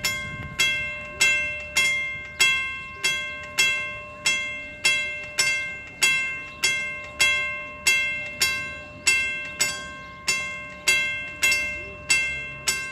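Level crossing warning bell ringing in steady repeated strikes, about one and a half a second, each ring decaying before the next: the crossing is signalling an approaching train. A faint low rumble runs underneath.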